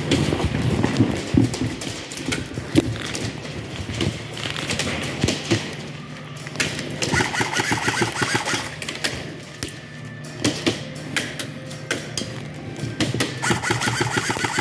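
Irregular thumps and knocks from someone moving about with the camera, over a low steady hum. A rapid clicking rattle comes for about two seconds in the middle and again near the end.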